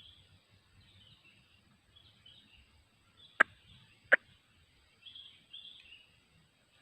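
Faint outdoor ambience with scattered high bird or small-animal chirps, broken about halfway through by two sharp, loud clicks less than a second apart.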